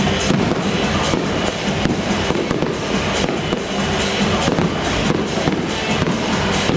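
Stadium fireworks going off in a dense run of rapid crackling pops, mixed with loud music with a drum beat.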